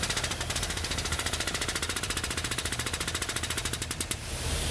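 Pneumatic ram pressing a harmonic balancer onto an engine's crankshaft snout, its air-driven pump pulsing rapidly and evenly. The pulsing stops about four seconds in.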